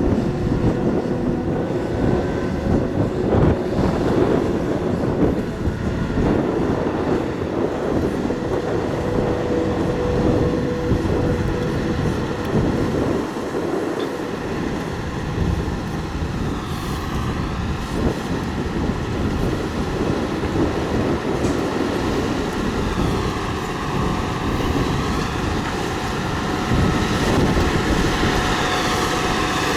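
LiuGong motor grader at work: its diesel engine runs steadily under a dense, uneven rattle and clatter from the machine.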